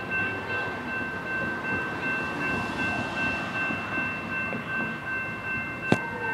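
Railroad grade-crossing warning bell ringing steadily as a Metra commuter train approaches, with the train's low rumble and a car driving past partway through. A single sharp click comes near the end.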